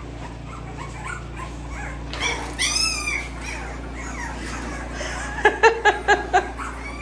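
Young boxer puppies whining and yipping: a high, arching whine about two to three seconds in, then a quick run of about six loud yips near the end.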